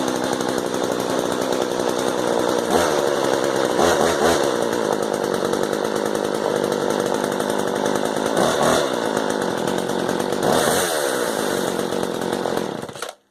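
Two-stroke petrol chainsaw running, revved up and back down about four times, then shut off near the end. It runs despite the hole that mice gnawed at its fuel intake, which is left unrepaired.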